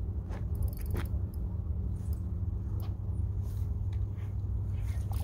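A steady low rumble, with scattered light clicks and scrapes from a spinning reel and rod as a hooked fish is played.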